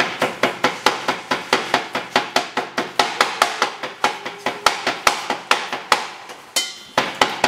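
Kitchen knife chopping leafy greens on a wooden chopping board: a fast, even run of knocks, about four to five a second, that breaks off briefly near the end and then starts again.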